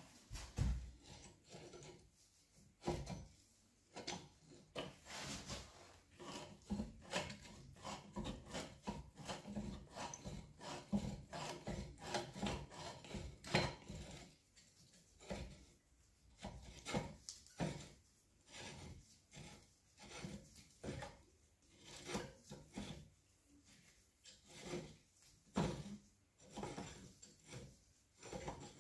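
Steel trapezoidal leadscrew of a SAJO milling machine being worked by hand through its nut: a long, irregular run of metal scrapes and clicks as the nut is forced over the last threads. The thread is worn and binds the nut.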